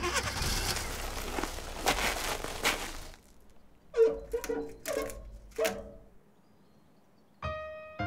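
Cartoon soundtrack effects. For about three seconds there is a loud, noisy rush with a low rumble, then four sharp knocks, each with a short ringing tone. Near the end a single held musical note comes in.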